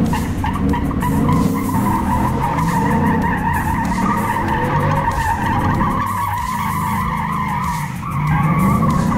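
Ford F-150 pickup spinning donuts: its tyres squeal steadily on the concrete while the engine revs rise and fall several times. The squeal fades for a moment about two-thirds through, then comes back.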